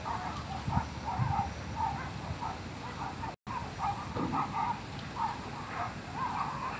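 Birds calling: a dense, irregular run of short calls, several a second, with the sound cutting out for an instant about halfway through.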